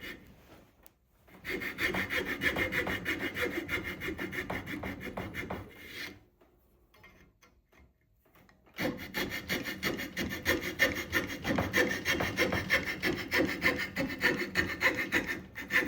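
Hand saw cutting through a tupelo decoy head in quick back-and-forth strokes. The sawing stops for a few seconds around the middle, then starts again.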